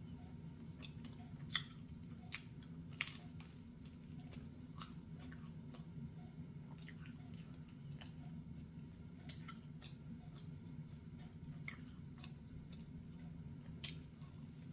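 Close-up chewing of pizza crust dipped in sauce: scattered wet mouth clicks and smacks, with a sharper bite near the end, over a steady low hum.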